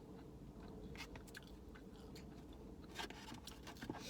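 Close, quiet chewing of food with soft mouth clicks, a few sharper clicks standing out about a second in and again near the end.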